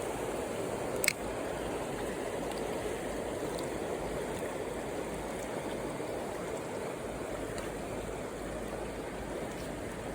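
Mountain stream water flowing steadily, with one sharp click about a second in.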